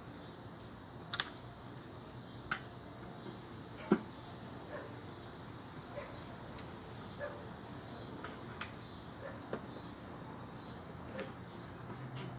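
Insects chirping steadily in a high, evenly repeating pulse, about one and a half chirps a second, with scattered sharp clicks and light knocks, the loudest knock about four seconds in.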